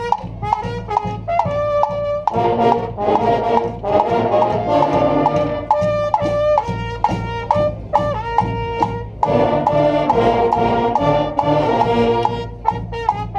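Brass street band playing a call and response: a trumpet plays a short two-bar call and the massed horns answer, the exchange repeating several times over a steady drum beat.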